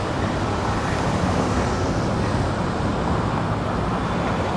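Steady road traffic noise from a busy street: a continuous rush of passing vehicles with no single event standing out.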